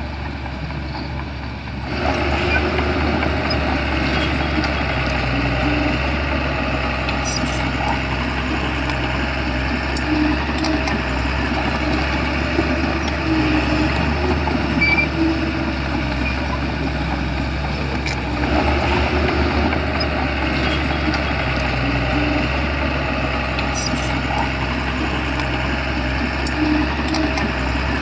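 Shantui bulldozer's diesel engine running steadily, getting louder about two seconds in.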